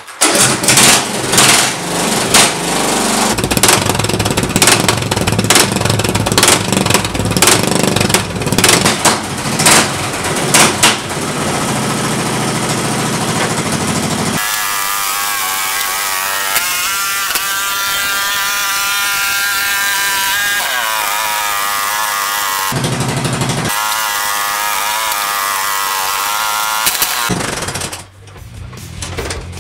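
Riding lawn mower engine running loudly with an uneven clatter for the first half. It is then held at higher revs, its pitch rising and falling, and stops shortly before the end.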